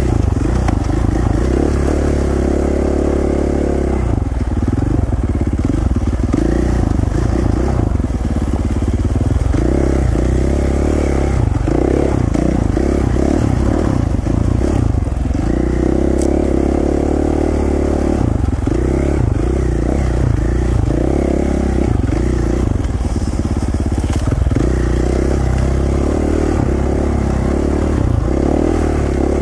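Dirt bike engine running while the bike is ridden along rough single track, the throttle rising and falling in uneven surges.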